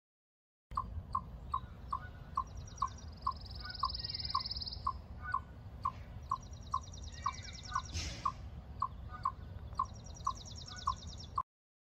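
Eastern chipmunk calling a steady series of sharp single chips, about two to three a second, its repetitive alarm call. High, fast trills sound faintly behind it.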